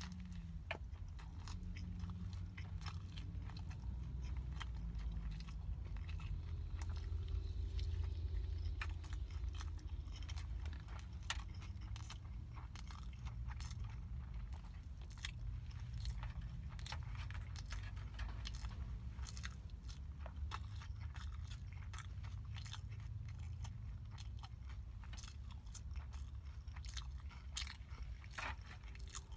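Close-up mouth sounds of a person eating a hamburger: chewing with many small wet clicks and lip smacks throughout. Underneath runs a steady low rumble.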